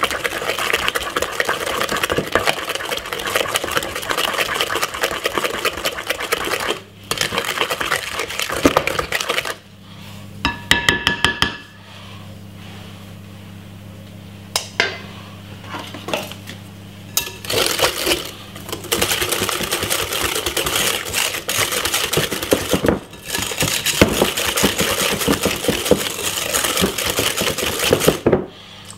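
Cake batter beaten fast in a glass mixing bowl, first with a wooden spoon and later with a wire whisk: a rapid, continuous clatter of utensil against glass. It stops for several seconds in the middle, just after a brief ringing clink.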